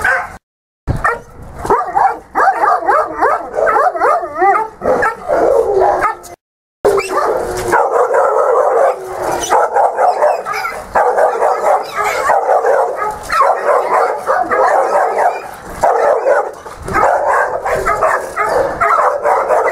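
Many kennelled shelter dogs barking, yipping and howling at once, a continuous din of overlapping barks and howls. The sound drops out completely twice, briefly, about half a second in and about six and a half seconds in.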